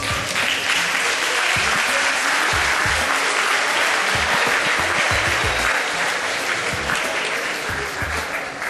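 Audience applauding, a steady sustained clapping that swells in at once and eases slightly near the end, with background music underneath.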